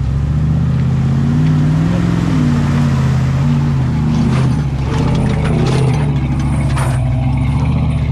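Off-road vehicle's engine revving up and down under load as it crawls up a rough, rocky washout, with a few sharp knocks and clicks about halfway through.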